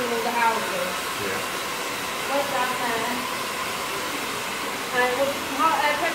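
Cordless electric hair clippers running steadily as they trim a short beard down to a number one.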